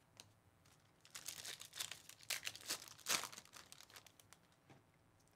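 A foil trading-card pack wrapper being torn open and peeled off the cards, crinkling in a quick run of rustles for two or three seconds.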